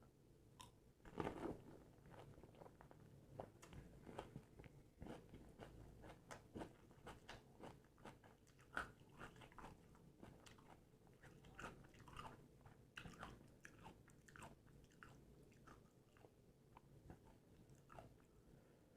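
Pani puri being bitten and chewed close up: a loud crunch of the crisp fried puri shell about a second in, then a long run of small crunching and crackling chewing sounds.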